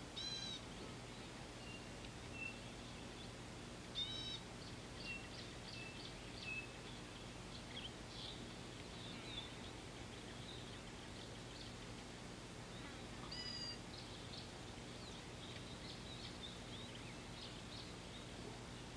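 Wild birds calling in the bush: a scatter of short high chirps and whistles, with three louder ringing calls, one at the very start, one about four seconds in and one about two-thirds of the way through. A faint steady low hum runs beneath.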